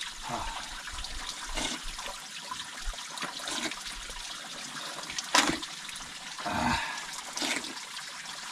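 Natural spring water trickling and splashing steadily while people drink from it, with a few brief louder splashes.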